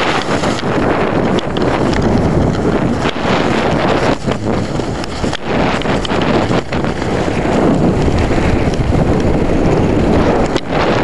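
Loud wind buffeting the microphone of a chest-carried camera during a ski run downhill, mixed with the skis scraping over the snow.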